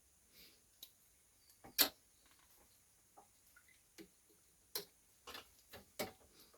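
Scattered light clicks and taps at irregular spacing, the sharpest about two seconds in, with a small cluster in the last two seconds.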